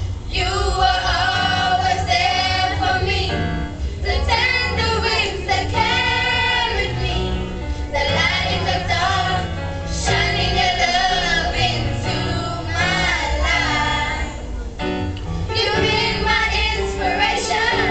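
A choir of young students singing together, in phrases of a few seconds with short breaths between them, over a steady low bass underneath.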